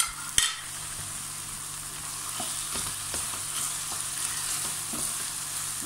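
Chopped onion, pepper and tomato with tomato paste frying in oil in a pot, sizzling steadily while a wooden spoon stirs it. Two sharp knocks about half a second apart at the start.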